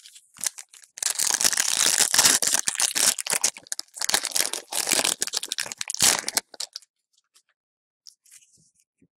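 A trading card pack wrapper being torn open and crinkled in the hands. It makes a dense run of loud crackling from about a second in until about six and a half seconds, then only a few faint small taps.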